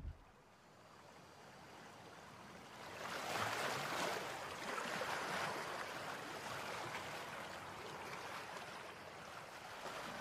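Ocean surf: a steady rushing wash of waves that swells in over the first few seconds and keeps going. A brief thump is heard right at the start.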